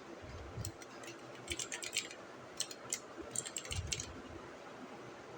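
Keys being pressed on an HP GK400F mechanical keyboard: short, faint clicks in irregular clusters of several taps, with pauses between them.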